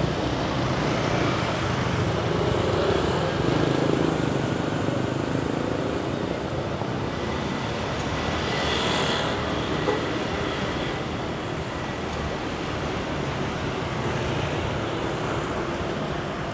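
Street traffic: cars and motor scooters driving past on the road close by, a continuous rumble of engines and tyres that swells a few seconds in and again about halfway through as vehicles pass.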